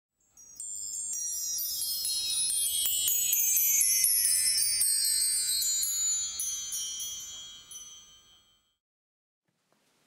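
Chimes ringing in a long shimmering cascade of many quick high notes that step down in pitch, swelling and then fading out about eight seconds in.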